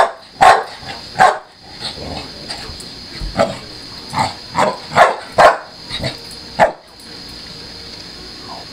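Pit bull barking, about ten short, sharp barks in a loose run that stops about two-thirds of the way through.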